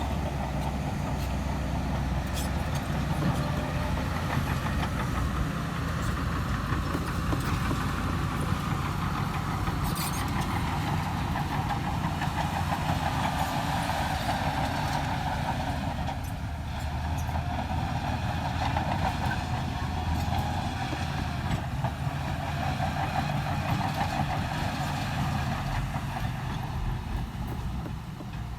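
Diesel engine of heavy earthmoving machinery running steadily under work, with a few short clanks.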